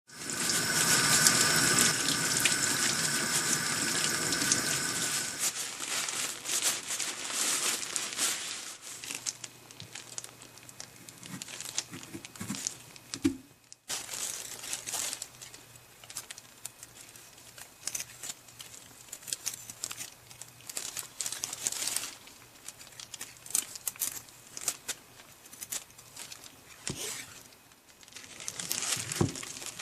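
Kitchen tap running as a karin (Chinese quince) is washed under it, then a cut to irregular rustling and rubbing as the fruit is handled and wiped dry with a towel.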